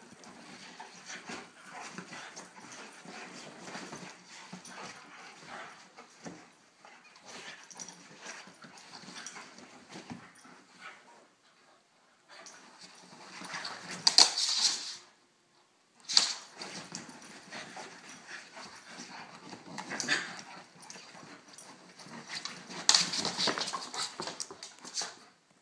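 Two dogs play-fighting on a couch: dog vocal noises mixed with scuffling, with louder bursts about halfway through and again near the end.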